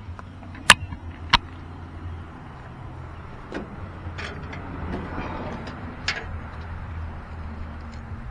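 Sharp metal clicks from handling the new shear bolt and tools at the rotary cutter's gearbox, two loud ones about a second in and a few lighter ones later, over a steady low hum.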